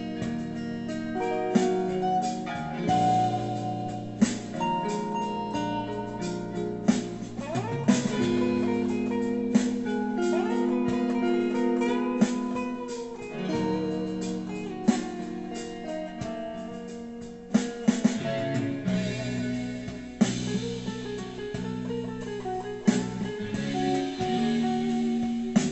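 Electric guitar playing an improvised lead over a backing track with a slow beat, with held notes and several bent, sliding notes, recorded through a phone's microphone.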